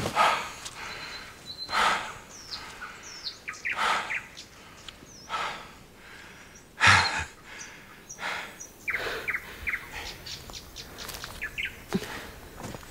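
Small birds chirping in short, scattered calls, with footsteps thudding slowly on the ground every second or two; the heaviest step lands about seven seconds in.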